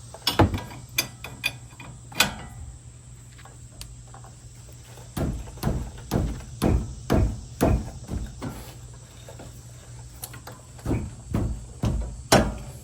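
Hand tools clanking on a truck's tie rod end as a bolt is worked loose with a 24 mm wrench: irregular sharp metallic knocks, with a run of about two a second in the middle and a loud one near the end.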